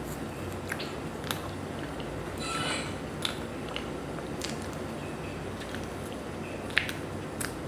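Close-up sounds of eating soft red velvet cake with cream frosting: a brief soft squish as the cake is pulled apart, then scattered wet mouth clicks and lip smacks as she chews, over a steady hiss. A sharp smack near the end is the loudest.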